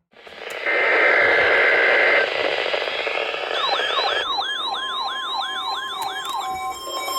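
Weather radio receivers going off on a NOAA Weather Radio alarm test. First comes a burst of static with a high tone. From about halfway, rapid warbling siren alerts sound over the steady NOAA warning alarm tone, and an alternating electronic beeping starts near the end.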